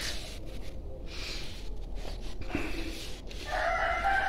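Kittens eating soft food from plates, with faint eating noises. Near the end, a long drawn-out animal call with a slightly falling pitch sounds over it.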